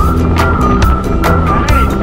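Background music with a steady drum beat, a little over two hits a second, and a high lead melody that comes in at the start on a long held note with small bends in pitch.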